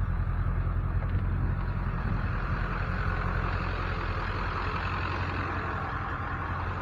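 Truck engine running steadily: a constant low hum with an even rushing noise over it.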